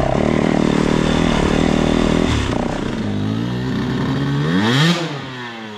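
Yamaha WR450 four-stroke enduro bike running steadily under way, heard close up from the bike. After a couple of seconds it gives way to a KTM 125 EXC two-stroke revving up hard in a muddy rut, peaking about five seconds in, then dropping back as the bike bogs down.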